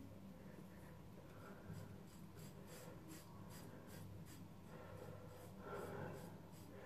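Edwin Jagger double-edge safety razor with a Wilkinson Sword blade scraping stubble on the scalp in short, faint touch-up strokes, about three a second, starting about a second and a half in.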